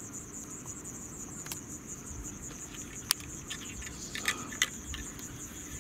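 Crickets chirping in a steady, fast-pulsing high trill, with a few sharp clicks and ticks standing out over it, the loudest about three seconds in and again a little before the end.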